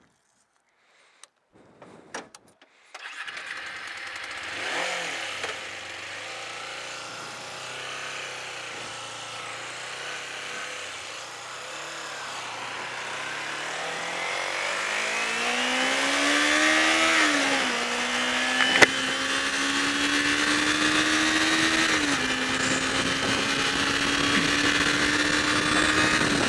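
Kawasaki Ninja 250R's parallel-twin engine starting about three seconds in after a few small clicks, then idling and pulling away: the pitch rises as it revs through a gear, drops at an upshift, climbs again and drops at a second upshift, then holds steady at cruising speed with rising wind noise. A sharp click sounds once partway through.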